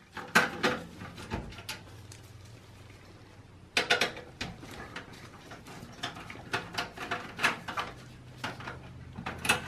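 Screwdriver working the two small screws out of a steel PC case's internal speaker mount: a run of light metal clicks and scrapes, a short cluster, a pause of about two seconds, then a busier run of clicks from about four seconds in.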